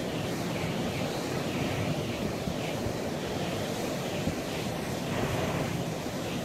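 Steady wind gusting over the microphone, mixed with surf breaking and washing against a rocky shore in choppy seas.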